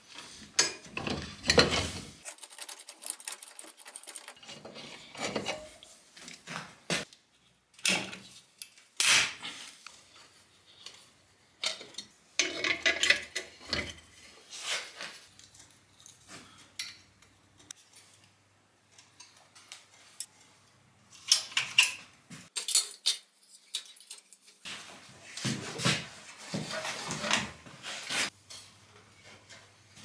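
Metal tools and parts clinking and clattering in irregular bursts as they are handled and set down.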